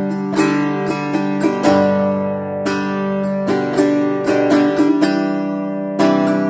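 A 1930s–1940s Schönbach folk/gypsy guitar played solo on its own: chords struck at an uneven pace with single melody notes picked between them, each chord left to ring.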